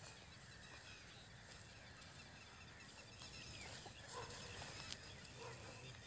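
Quiet outdoor ambience with a few faint, short animal calls in the second half.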